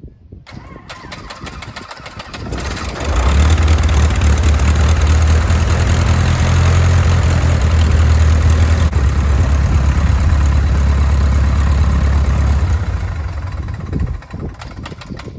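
Cessna 150's Continental O-200 four-cylinder air-cooled engine started for a test run after an oil change. The sound builds over the first few seconds, the engine runs loud and steady for about ten seconds, then dies away near the end.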